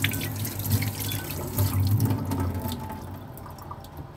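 Kitchen tap running into the sink as a banana is rinsed under it, the water splashing unevenly; the flow eases off about three seconds in.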